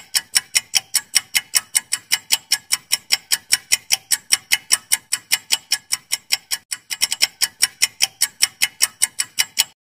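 Ticking sound effect for a countdown timer: sharp, even clock-like ticks, about five a second.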